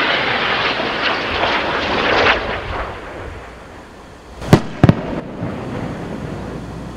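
Small rocket's motor crackling and hissing loudly at launch, fading over about three seconds as it climbs away. Then come two sharp bangs about a third of a second apart, followed by a lower rush of noise.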